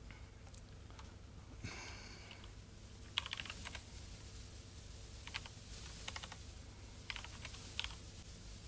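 Faint typing and key clicks on an HP laptop keyboard, in a few short bursts, over a steady low hum.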